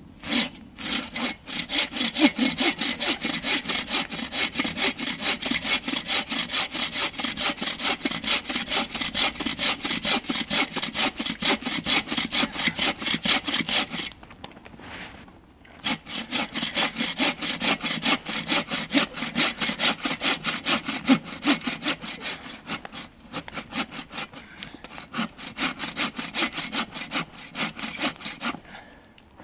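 Hand saw cutting through a fallen log, with steady back-and-forth strokes. The sawing stops for a couple of seconds about halfway through and breaks off briefly twice more later on.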